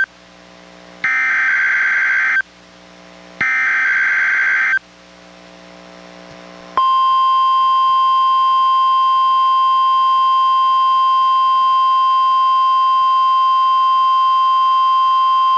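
NOAA Weather Radio test broadcast on a Reecom R-1630 weather radio. It plays two harsh, buzzy SAME data bursts about a second and a half long each, a second apart, and then, after a short gap, the steady 1050 Hz warning alarm tone for about nine seconds, which cuts off suddenly.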